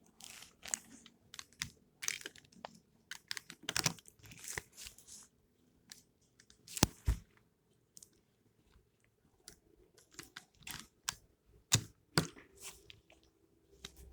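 Plastic pieces of a disassembled stickerless Rubik's cube clicking and scraping as they are sorted and pushed into place. The clicks come irregularly, with a few sharper snaps about 7 seconds in and again near 12 seconds.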